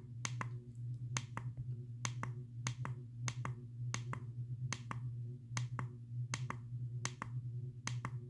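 Thermostat push buttons clicking repeatedly, about two presses a second, as the set temperature is stepped through one degree at a time. A steady low hum runs underneath.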